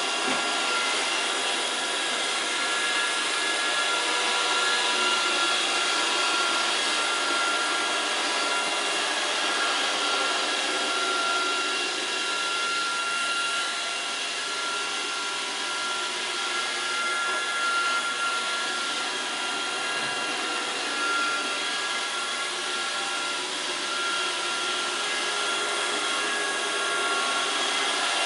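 Roomba robot vacuum cleaner running: a steady whirring noise with several high, steady tones.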